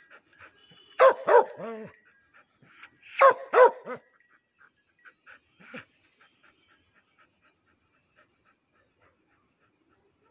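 A chained black-and-tan dog barking: two quick bursts of two or three barks about two seconds apart, one more bark a couple of seconds later, then fast panting that fades away.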